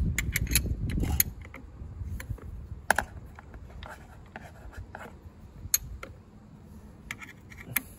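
Scattered metallic clicks and clinks of a ring spanner on the kick-start lever bolt and the lever being handled on a Honda Today scooter's engine side cover, with a low rumbling noise through about the first second.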